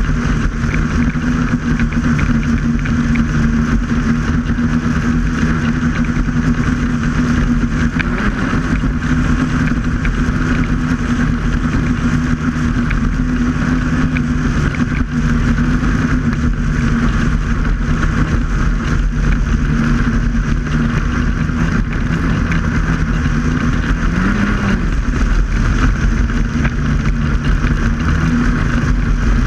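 Snowmobile engine running steadily at speed while riding across a frozen lake, its pitch rising briefly twice.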